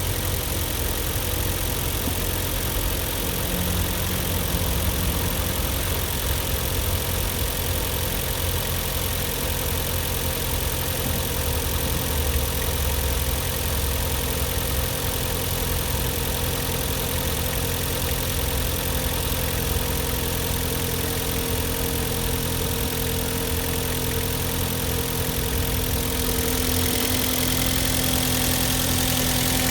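Hyundai/Kia G4KD 2.0-litre four-cylinder petrol engine idling steadily while warming up, growing slightly louder near the end.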